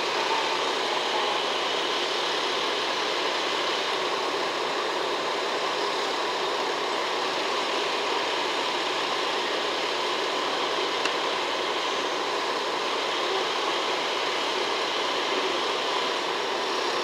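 Diesel locomotives idling in a rail yard, heard as a steady, even running noise with no change in level.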